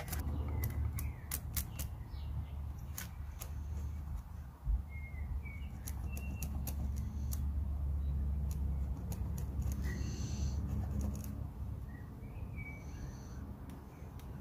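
Birds chirping in short calls off and on, over a steady low rumble, with scattered light ticks.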